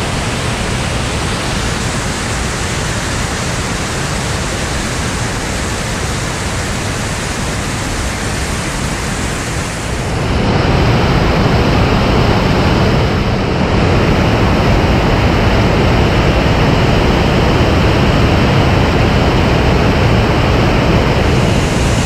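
Rushing white water of a stepped waterfall in rainy-season spate, muddy water tumbling over tier after tier of rock in a loud, steady rush. About ten seconds in it grows louder and deeper.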